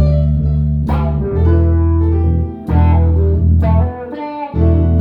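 Band music with guitar and bass, the bass notes changing about once a second with a short gap near the end.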